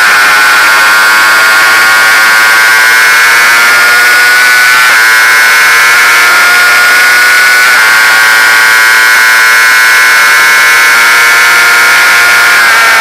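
Sport motorcycle engine at high revs, heard from the bike's own onboard camera, its note climbing slowly as the bike accelerates out of a corner and along the main straight, with brief breaks about five and eight seconds in at gear changes.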